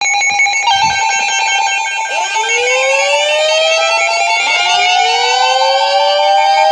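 Emergency alert tones: a rapidly pulsing electronic tone, joined by a siren wail that rises in pitch and levels off, starting about two seconds in and again about four and a half seconds in.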